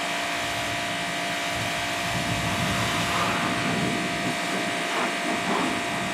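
Ryobi electric pressure washer running with a steady motor whine, its water jet hissing and spattering. The spray gets louder and rougher from about two seconds in.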